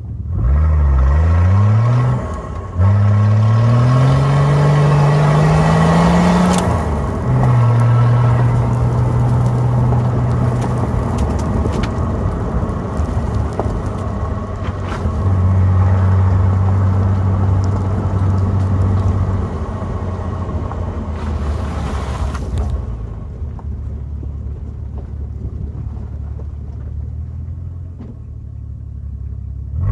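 Nissan RD28T 2.8-litre straight-six turbodiesel driving a vehicle along a gravel track. The engine note rises in pitch twice in the first seven seconds with breaks between the climbs, then holds steadier, and runs quieter and lower in the second half.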